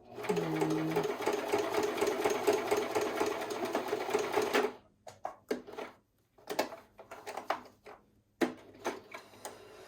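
Singer sewing machine stitching steadily through fabric for about four and a half seconds, then stopping. Afterwards come a few scattered light clicks and taps.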